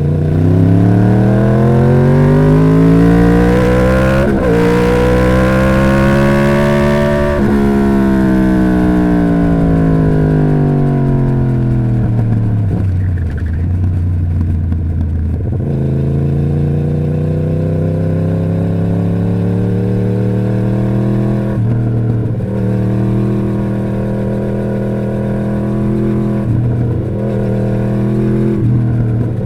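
2011 Yamaha YZF-R1's crossplane inline-four running through its stock exhaust. The engine pitch climbs smoothly for about seven seconds, then falls away. It picks up again about halfway through and holds fairly steady, with small changes near the end.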